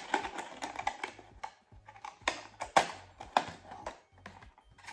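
A folding cardboard gift box being creased and assembled by hand: irregular sharp clicks and crackles of the paperboard.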